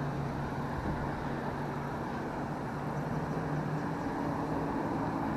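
Steady rumble of distant road traffic, with a low hum that grows a little stronger partway through.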